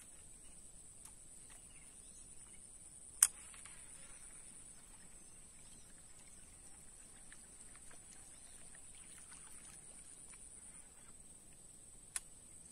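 Steady high-pitched insect drone in the background, broken by one sharp click about three seconds in and a smaller click just before the end, with faint scattered ticks in between.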